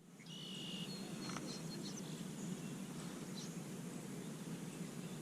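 Faint outdoor ambience: a steady low background hiss, with one short buzzy call about half a second in, followed by a thin high whistle lasting under a second.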